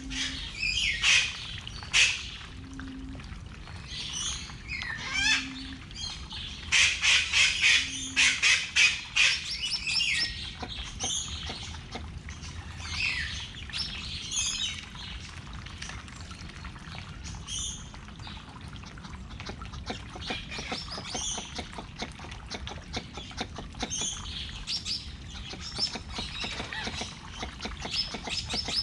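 Birds chirping and twittering outdoors, densest in a burst a quarter of the way in. Four brief low tones come in the first eight seconds, and a fast patter of clicks runs through the second half.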